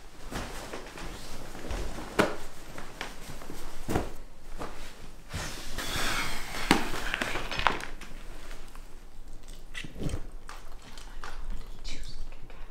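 Movement noise without speech: scattered light knocks and thuds, footsteps and the rustle of clothing as a man moves about and sits down on a couch.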